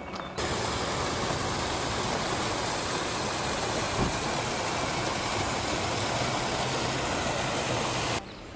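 A loud, steady engine-like roar that starts suddenly just after the beginning and cuts off abruptly near the end.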